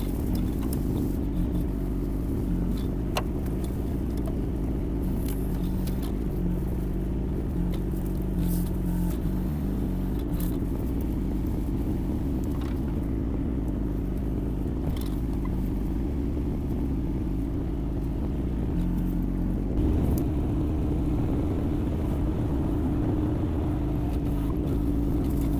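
Yanmar diesel engine of a Kymron XH20D mini excavator running steadily, with a few scattered clicks and knocks. About three-quarters of the way through, the engine note rises slightly and gets a little louder.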